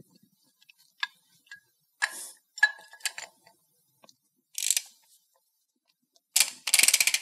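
Ratchet wrench on the spindle nut of a truck wheel hub: a few scattered clicks and short scrapes as the socket goes on, then rapid, even ratchet clicking starting near the end as the nut is backed off one full turn during wheel-bearing adjustment.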